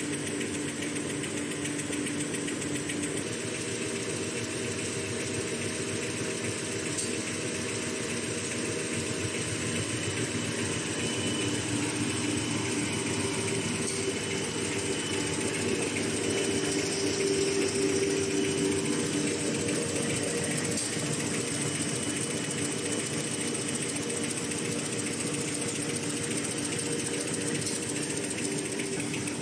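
A two-line kitchen towel and facial tissue making machine (CIL-AS-288B) running: a steady, fast mechanical clatter over a constant hum from its rollers and folding mechanism, swelling a little past the middle.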